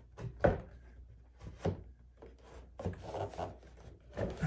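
Crown molding being shifted and pressed by hand against the wall and ceiling: scattered light knocks and scraping rubs, the loudest knock about half a second in.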